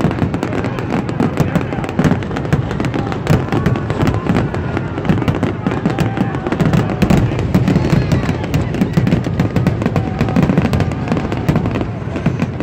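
Fireworks finale: a dense, unbroken barrage of bursts and crackling shells going off in rapid succession, with a constant low rumble underneath.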